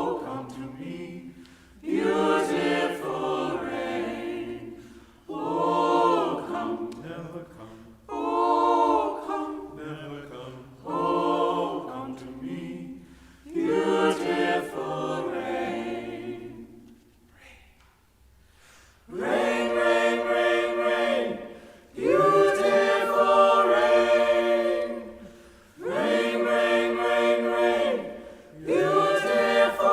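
Choir singing a cappella in short phrases of two to three seconds with brief breaths between them. After a short pause about two-thirds of the way through, the phrases become fuller and are held longer.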